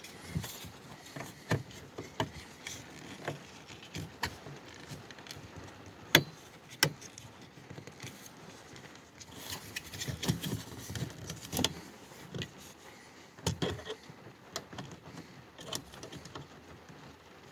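Plastic clicks, taps and handling noise as a 1999 Chevy Prizm interior door handle assembly is fitted and clipped back into the door, with a few sharper snaps scattered through.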